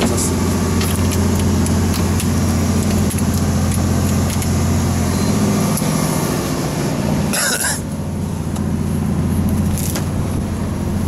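A fishing boat's engine running with a steady low hum, with scattered light clicks and knocks. About seven and a half seconds in, a brief hissing rush lasts about half a second.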